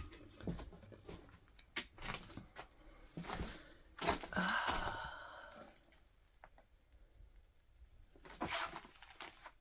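Intermittent rustling and crinkling of old paper as magazines and mail are sorted through by hand, in short scattered bursts with one longer rustle about four seconds in and a lull after it.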